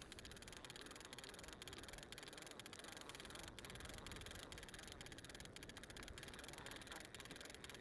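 Faint fishing reel being wound in, light irregular clicks over a low steady hiss, as a small fish is brought up to the kayak.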